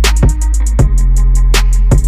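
Background music with a drum-machine beat: quick hi-hat ticks over a steady heavy bass, with a sharp snare-like hit at the start.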